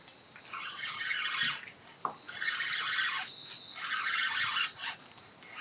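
Spinning fishing reel working under load against a hooked eagle ray: three bursts of about a second each, with short pauses between them.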